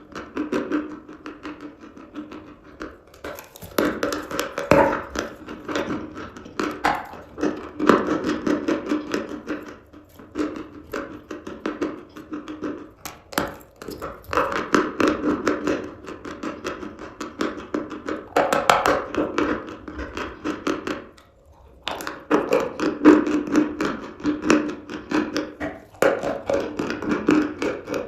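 Close-up crunching and chewing of eating chalk: a dense run of crisp cracks and clicks, broken by a short pause about three-quarters of the way through.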